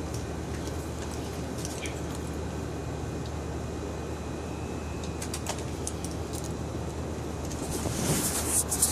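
A steady low hum and rumble with faint scattered ticks, and a rustling crackle that grows louder near the end.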